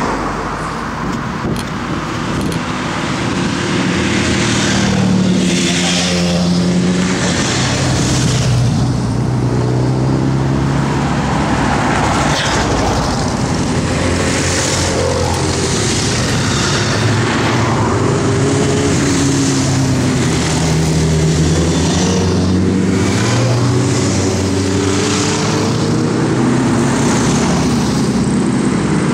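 A steady procession of motorcycles riding past one after another, their engines overlapping without a break, each engine note rising and falling as it goes by.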